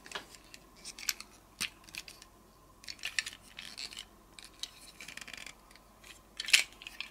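Scattered small clicks and taps of a Gobots Puzzler component robot's parts being handled and snapped into place while combining the figure, the loudest click about six and a half seconds in.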